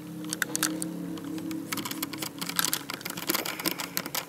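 Quick, irregular small clicks and taps of a micro Phillips screwdriver driving a screw into a laptop's hinge area, with plastic keys and case parts clicking under the hands; the clicking grows busier about halfway through.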